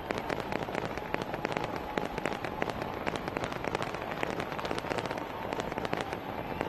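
Fireworks crackling: a dense, irregular run of many sharp pops and crackles close together.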